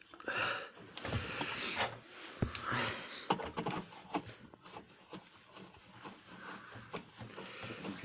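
Irregular clicks, knocks and rustling from hands and tools working at a washing machine's drum and rubber door seal, with a few sharper knocks in the first half.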